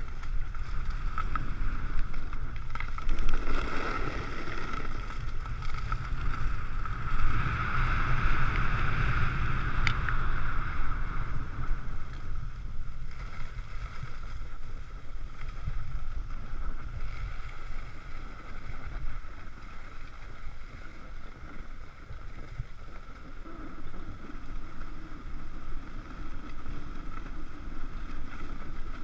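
Wind buffeting the microphone of a moving action camera, with the steady hiss and scrape of skis running over groomed, packed snow, strongest a few seconds in and again around the middle.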